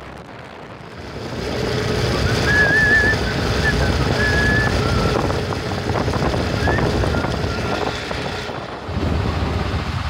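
Motorcycle running along the road with wind rushing over the microphone, and the rider whistling a short wavering tune a few seconds in.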